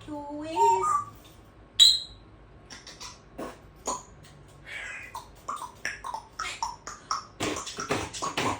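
African grey parrot vocalising: a short voice-like sound, then a sharp high squeak about two seconds in, followed by a run of short clicks and chirps that come thick and fast near the end.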